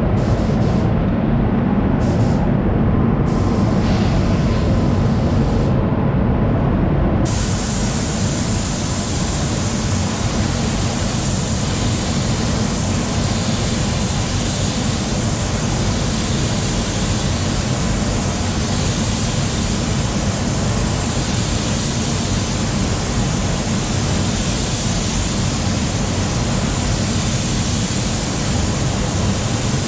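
Steady rushing air noise in an automotive paint spray booth. About seven seconds in it turns into the fuller hiss of a paint spray gun being used.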